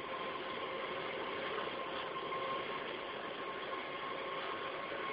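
Diesel locomotive heard from inside its cab while running along the line: a steady, unbroken engine and running noise with a faint steady hum through it.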